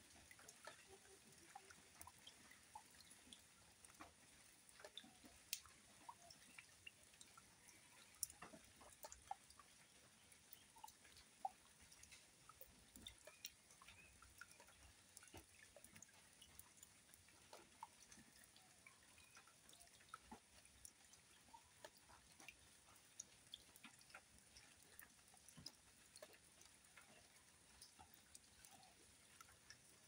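Water falling into a shallow muddy pool: faint, irregular drips and plinks of splashing over a soft hiss.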